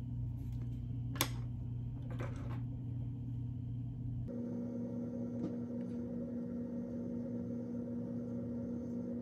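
Steady low hum that shifts to a different pitch about four seconds in, with a sharp click about a second in and a brief softer rustle just after.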